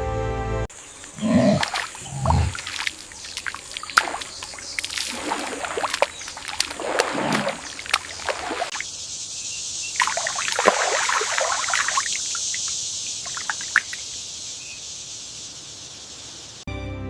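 Water splashing and sloshing, with two heavier splashes about a second and two seconds in, then irregular trickling and scattered sharp clicks over a steady high hiss.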